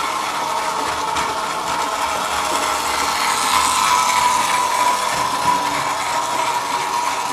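A 1974 Märklin gauge 1 BR 80 model steam locomotive running on its track, its electric motor and gearing giving a steady whirring whine. It gets a little louder as it passes close, about four seconds in.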